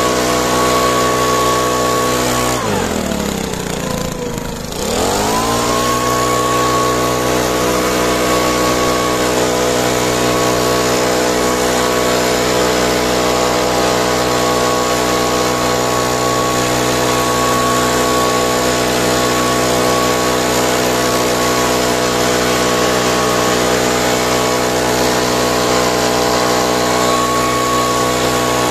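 Small petrol engine of a garden power tool running steadily at speed. About two and a half seconds in its speed drops sharply, then picks back up to full speed by about five seconds.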